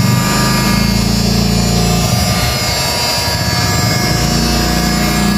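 Total 2000-watt heat gun running, its fan motor blowing a steady hot-air stream onto a faded plastic panel to darken it. The low hum turns rougher for about two seconds in the middle.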